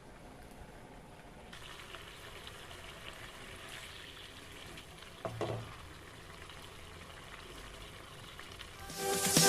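Food frying in a pan: a faint, steady sizzle that starts about a second and a half in, with one brief louder sound about five seconds in. Electronic dance music comes in loudly near the end.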